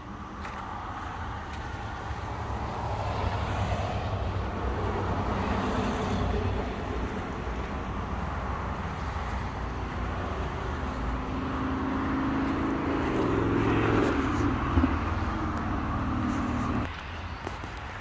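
Road traffic passing on a busy road, swelling and fading, with an engine's steady drone growing louder in the second half and cutting off suddenly near the end.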